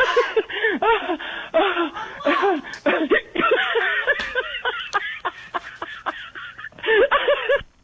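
Voices of people talking animatedly and laughing, cutting off abruptly near the end.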